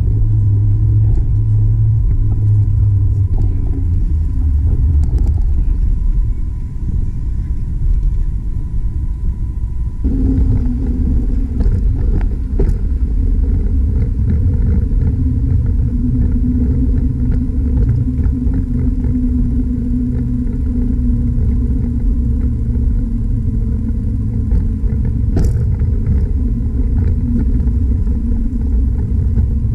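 Steady low wind rumble on a bike-mounted camera's microphone while riding.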